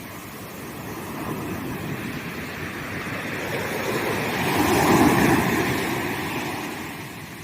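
Ocean waves breaking on a sandy beach: the surf noise swells to a peak about five seconds in, then washes back down.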